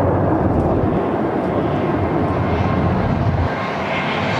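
Jet engine noise from a twin-engine airliner rolling out on the runway just after touching down: a steady, loud rumble that eases slightly near the end.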